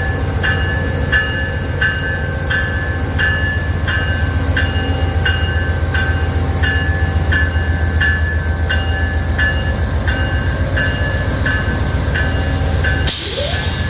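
Amtrak Northeast Regional train passing with a steady low rumble, under an evenly repeating grade-crossing bell striking about one and a half times a second. A sudden loud rush of noise cuts in near the end.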